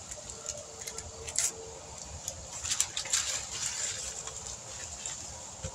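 Newspaper masking and painter's tape crackling and rustling as they are peeled off a freshly spray-painted truck fender, in irregular short crinkles.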